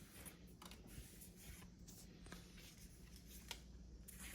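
Faint rustling and light scraping of Pokémon trading cards being handled and slid against one another, with a few soft clicks.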